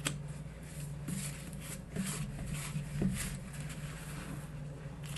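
Soft, intermittent rustling of paper ephemera cards and vellum pieces being picked up and shuffled by hand, over a steady low hum.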